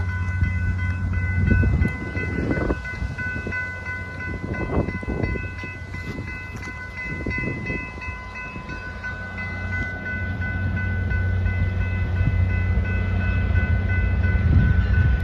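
Diesel train passing a grade crossing: a steady low engine rumble with a few louder clanking surges in the first half. Over it a high ringing holds steady throughout, typical of the crossing bell.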